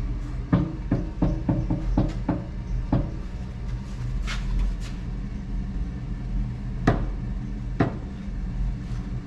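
A quick run of about ten clicks and knocks in the first three seconds, then three single knocks, from tools and metal frame parts being worked, over a steady low hum.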